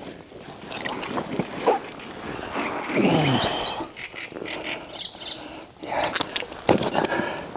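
A big mirror carp of about 54 pounds thrashing while being held, with wet slaps and sharp knocks, the sharpest near the end. About halfway through, a drawn-out voice-like sound falls in pitch.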